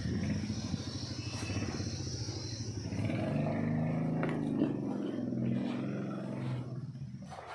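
A motor vehicle's engine running, its low pitch wavering a little, then fading away near the end.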